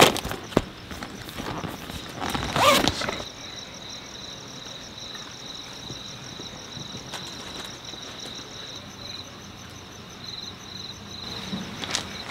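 Rustling and clicks of items being packed into a soft cooler bag, then crickets chirping in a steady high, pulsing trill.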